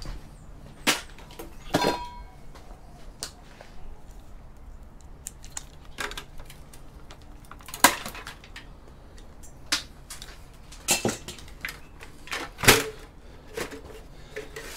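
Metal clanks and clicks from an old desktop PC's steel case and power supply being worked loose: irregular sharp knocks, one ringing briefly about two seconds in.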